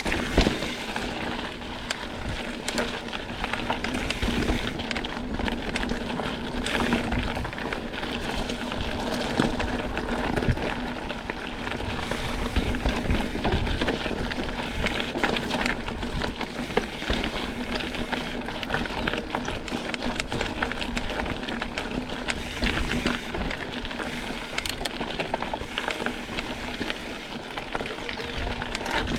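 Mountain bike riding over a rocky trail: a steady rushing noise with many quick knocks and rattles as the tyres and bike hit the rocks.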